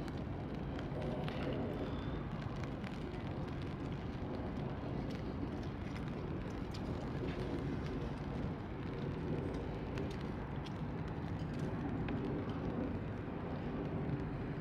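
Steady outdoor city ambience in rain: a low, even rumble of distant traffic and city noise, with faint light ticks of rain scattered through it.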